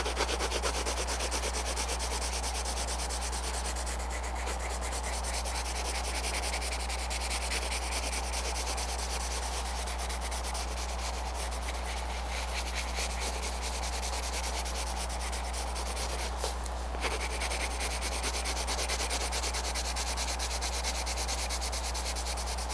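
Colored pencil scratching on paper in rapid back-and-forth shading strokes, layering blue over a shaded area, with a steady low hum underneath.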